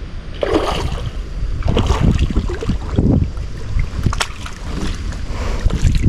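A hooked carp thrashing at the surface of the water, splashing several times as it is played toward the bank, over steady wind buffeting the microphone.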